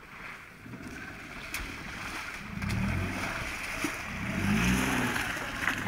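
A Daewoo Matiz's small engine revving in two surges as the hatchback drives through the mud toward and past the microphone, growing louder as it nears.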